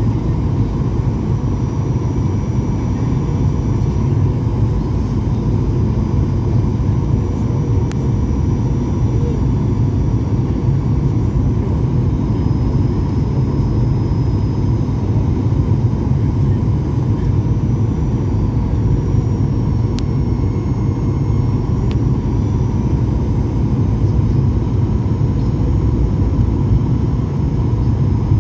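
Strong wind buffeting the microphone: a loud, steady low rumble that holds without rising or falling.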